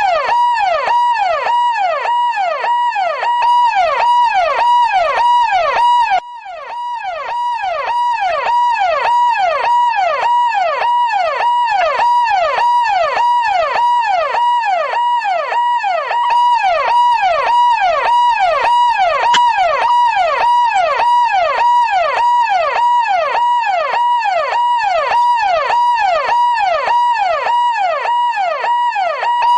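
Electronic police siren in a fast yelp, its pitch sweeping up and down in quick, evenly repeating cycles over a steady pulsing tone. About six seconds in it drops away briefly and swells back in.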